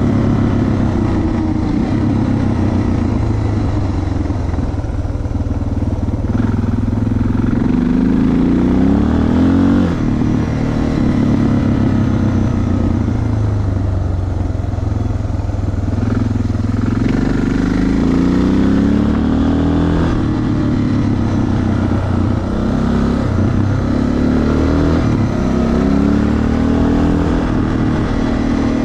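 Suzuki DR650's single-cylinder four-stroke engine running as the motorcycle is ridden, its pitch rising and falling back several times with the throttle.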